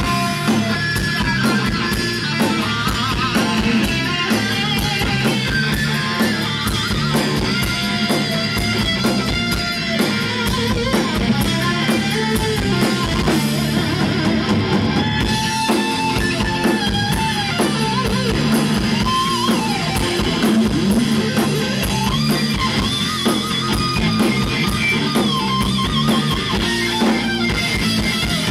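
Hard rock band playing an instrumental stretch: a lead electric guitar plays bending melodic lines over bass guitar and drum kit, with no singing.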